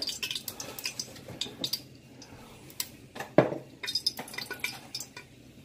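Vegetable oil poured from a bottle into an empty stainless-steel pot, with light clinks and taps of metal and glass and one sharper knock about three and a half seconds in.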